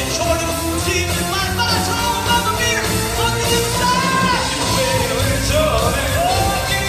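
Southern gospel male vocal quartet singing live with band accompaniment: several voices in harmony over a steady bass line.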